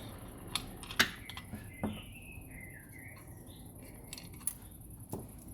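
Light clicks and knocks of small hard lock parts and tools being handled and set down on a bench, the sharpest about a second in. A faint high wavering tone drifts down in pitch through the middle.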